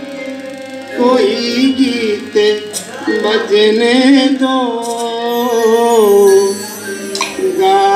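A man singing a song in long, gliding held notes into a microphone, with a few sparse strokes on a dholak.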